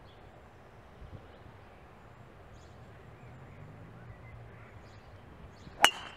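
Golf club striking a teed golf ball: one sharp crack near the end, with a brief ringing after it, over a quiet outdoor background.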